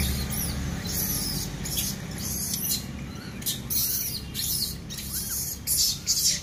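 Rhesus macaques squeaking and chirping as they feed, short high calls scattered throughout. A low engine hum fades in the first second.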